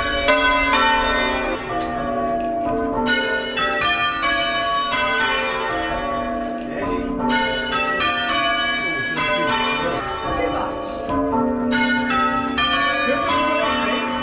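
The tower's ring of six church bells being rung full-circle in change ringing: a steady, unbroken sequence of strikes whose ringing tones overlap one another.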